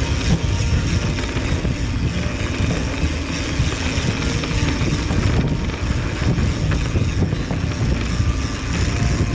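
Steady low rumble of wind buffeting an action camera's microphone, mixed with riding noise from a mountain bike on a dirt trail.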